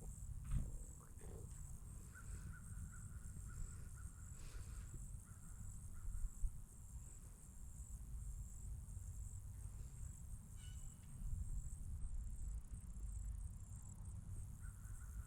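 Insects chirping steadily, a high-pitched pulsing trill, over a low rumble, with a short bird call about two-thirds through.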